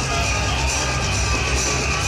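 Loud electronic dance music with a heavy bass beat, over the noise of a street crowd.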